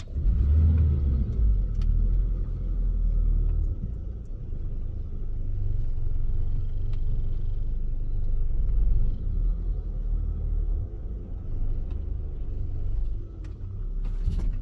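Van's engine and drivetrain rumbling low inside the cabin as the van reverses slowly, the rumble coming up about half a second in.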